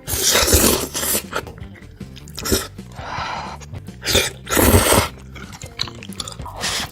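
Close-miked eating: loud crunchy bites and chewing, a few seconds apart, over background music with steady low notes.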